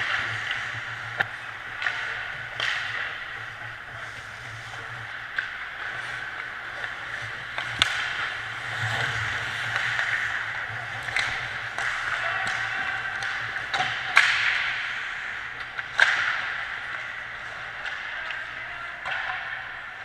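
Ice hockey play heard from the goal crease: skates scraping and carving on the ice, with sharp clacks of sticks and puck now and then, echoing in the rink. The two loudest clacks come late on, and a low steady hum sits underneath.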